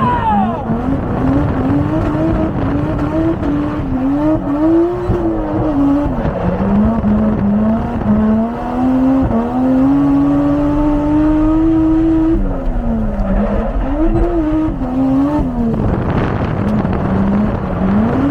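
Toyota 1JZ straight-six in a track-driven Lexus IS300, revving hard up and down under load, its pitch climbing and dropping every second or so. About halfway through it holds one long, steady high-rev pull, then drops and resumes the quick up-and-down revving.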